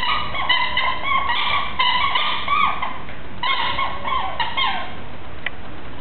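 A rapid run of high-pitched squeaks, many bending down in pitch at the end, as a West Highland white terrier puppy plays with a small pink ball; they stop about five seconds in.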